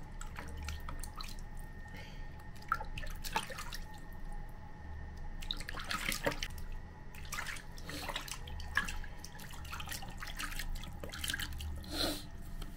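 Water splashing and dripping in a plastic bath basin as a hand scoops and pours it over a baby monkey, in light, irregular splashes.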